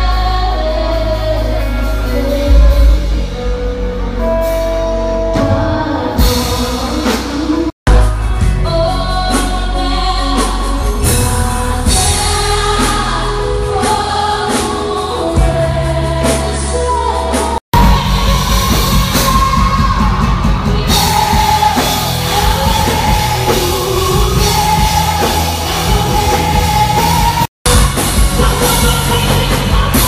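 Live band with drum kit and a woman singing lead into a microphone, recorded on a phone. The music breaks off three times for a split second where short clips are joined, and the drumming gets heavier in the second half.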